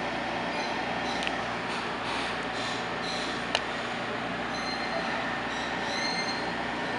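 Bombardier electric commuter train running, heard from inside the passenger car: a steady rumble of wheels on rail with high wheel squeals coming and going. A sharp click sounds about three and a half seconds in.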